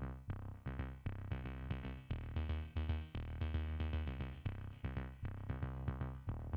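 Background electronic music with a steady drum-machine beat, about three strokes a second, over a held bass.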